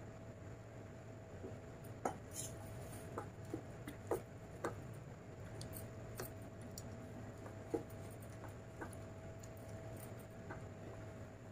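Eating by hand: fingers squishing rice and chicken curry against a steel plate, and chewing, heard as scattered soft wet clicks and smacks, a dozen or so spread irregularly, over a faint steady hum.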